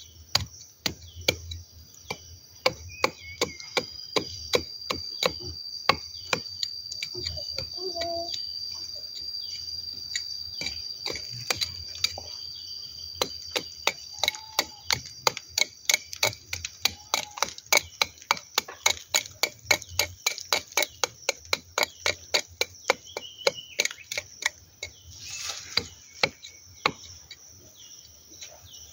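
Knife blade chopping into a durian tree's trunk, cutting out the rotting bark of a stem-canker wound: a long run of sharp chops, a few each second, quickest around the middle.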